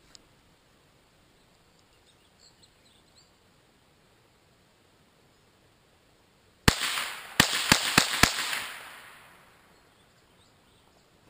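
Five shots from a Marlin 795 .22 LR semi-automatic rifle: one shot, then four fired quickly after it, with an echo that fades over about a second and a half.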